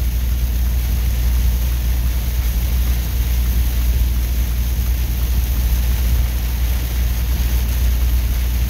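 Semi-truck cab interior while driving at speed: a steady low engine drone with road and wind noise.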